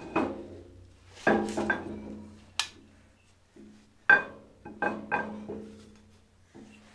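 A series of metal clunks and knocks, each ringing briefly, as a Massey Ferguson 35's halfshaft and brake back plate assembly is worked into the rear axle housing to engage the diff splines. The loudest knock comes about four seconds in.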